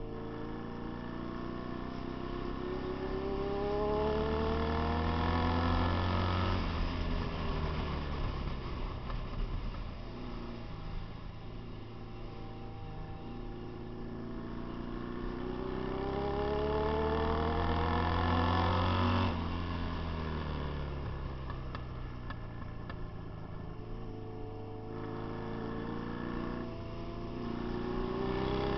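Motorcycle engine under hard throttle, its pitch climbing steadily for several seconds, then the throttle snapped shut and the note dropping away. This happens twice, and it starts climbing again near the end.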